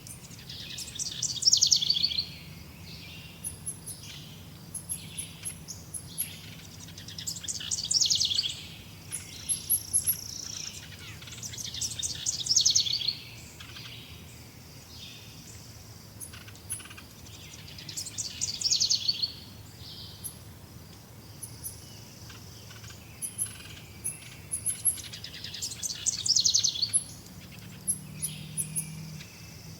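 Forest birdsong: one bird repeats a song of rapid notes that fall in pitch, about two seconds long, roughly every five to seven seconds, while other birds give thin high chirps in between.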